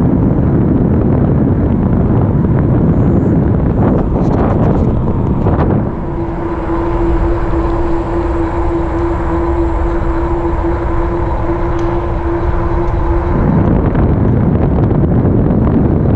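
Wind rushing over a GoPro microphone on a RadRover fat-tire e-bike riding along a paved trail, with the low rumble of the ride underneath. A few light clicks come about four to five seconds in. From about six seconds in until about thirteen, a steady one-note hum from the bike sounds over the wind.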